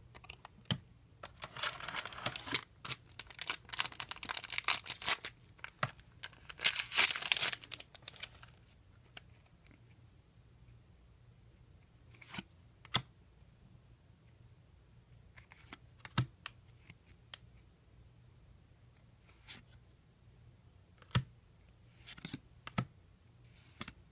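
A foil trading-card booster pack being torn open, crinkling and tearing for several seconds, then scattered light clicks and taps as the cards are handled.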